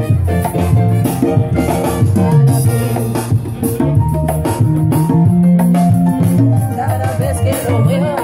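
Live Latin band playing salsa-style music: congas and a drum kit keep the rhythm under a prominent, walking electric bass line.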